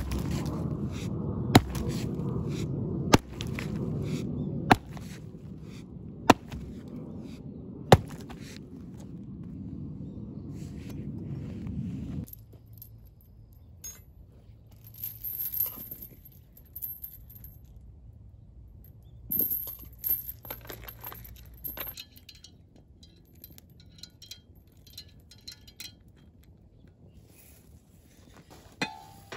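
Hatchet chopping a wooden tree branch: six sharp strikes about one and a half seconds apart over a steady background noise that stops about twelve seconds in. After that come quieter scattered knocks of wood and a few metal clinks.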